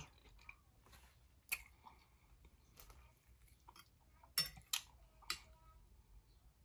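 Faint close-up chewing with soft mouth clicks, then a few sharp clicks in quick succession as a metal fork cuts through a hamburger steak and taps the ceramic plate, one with a brief ring.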